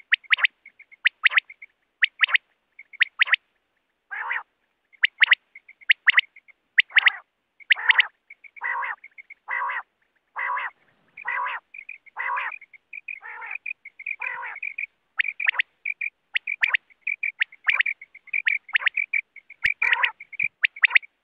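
Coturnix quail calling over and over: short, sharp notes two to three a second, with a quieter, fast twittering between them.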